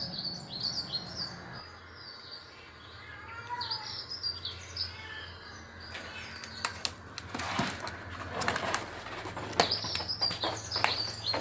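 Small songbirds chirping and twittering from a bird video played through TV speakers, with one short rising-and-falling whistle a few seconds in. In the second half, a run of sharp knocks and scuffing sounds breaks in.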